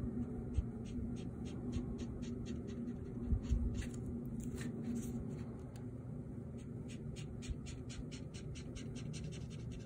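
Pen strokes scratching on drawing paper as a comic drawing is inked: short quick strokes, irregular at first, then a fast even run of about three a second in the second half, over a steady low hum.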